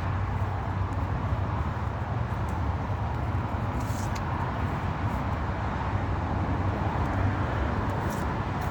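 Steady low background rumble and hum, with a couple of faint rustles of trading cards being handled, about halfway through and near the end.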